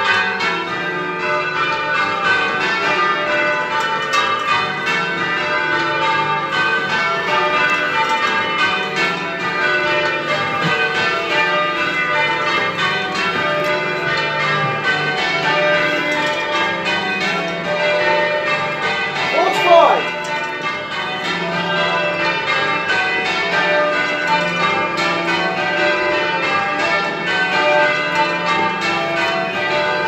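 The back six of Sonning's ring of eight church bells (tenor 20 cwt, in D) are rung full-circle in Devon call changes, with a steady, unbroken rhythm of overlapping strikes. About two-thirds of the way through, a man's voice calls out briefly over the bells, as a conductor calls a change.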